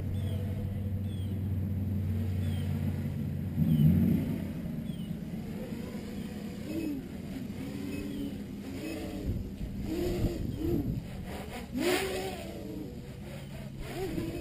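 Armattan 355 tricopter's 2600kv brushless motors whining as it flies overhead, the pitch swooping up and down again and again as the throttle is punched and cut through acrobatic moves. Under it runs a steady low rumble of wind on the microphone.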